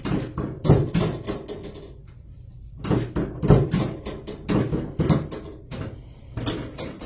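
Irregular knocks, clicks and rustling in four short clusters: movement and handling on a chiropractic treatment table.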